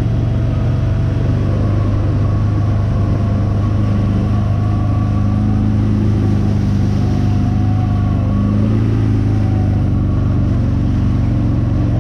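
ATV engine running steadily with a low, even drone, its pitch wavering slightly as it goes.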